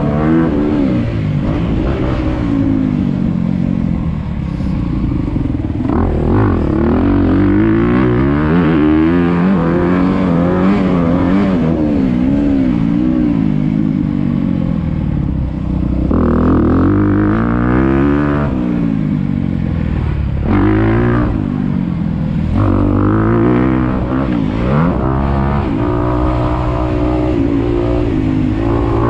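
2022 Honda CRF250R's single-cylinder four-stroke engine under hard riding, its pitch climbing and dropping again and again as the rider accelerates, shifts and backs off through the corners.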